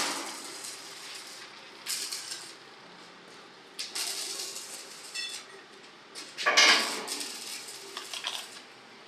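Steel pieces clanking and knocking together: a handful of separate sharp metal knocks and clatters, some with a brief ring, the loudest about six and a half seconds in.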